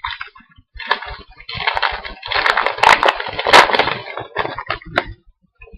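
A trading card pack's wrapper crinkling and tearing as it is ripped open, with the cards handled. The crackling comes in an irregular run of many small crackles lasting about four seconds.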